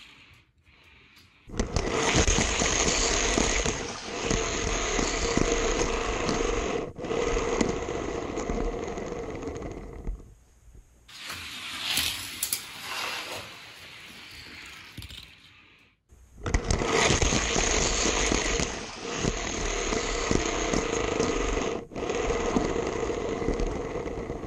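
Die-cast toy car wheels rolling along orange plastic Hot Wheels track, a loud rumbling scrape. It starts about a second and a half in and dies down around the ten-second mark. A second run starts a few seconds later and lasts until the end.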